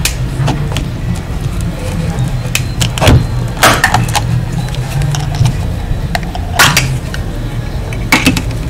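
Plastic case of a switch-mode power adapter being pried apart at its seam: several sharp cracks and snaps as the clips give, the loudest about three seconds in and near seven seconds, over a steady low rumble.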